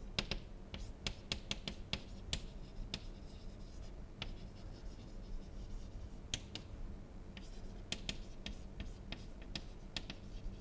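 Chalk writing on a chalkboard: irregular sharp taps and short scrapes as each letter is formed, with a lull in the middle, over a low steady room hum.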